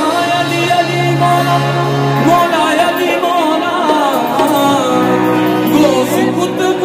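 Qawwali music: a sung vocal line sliding between pitches over steady, held harmonium tones, loud and unbroken.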